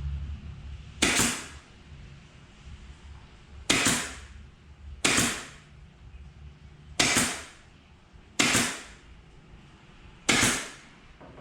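A pin nailer firing pin nails into pallet wood: six sharp shots, one every one and a half to two seconds.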